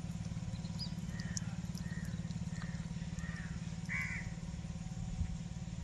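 A steady low engine drone runs underneath a bird calling about five times in quick succession, the last call the loudest.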